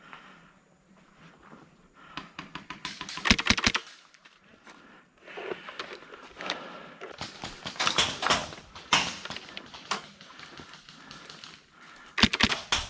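Airsoft guns firing in bursts of rapid, sharp clicking shots. The loudest bursts come about three seconds in and again near the end, with a long stretch of clicking in between.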